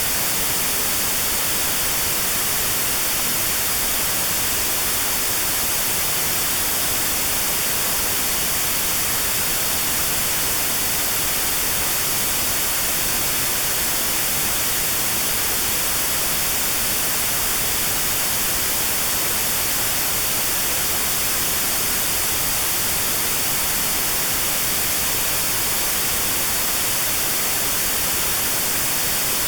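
Steady white noise with a narrow notch cut out around 4 kHz: notched sound therapy aimed at a 4 kHz tinnitus tone. An even, unchanging hiss.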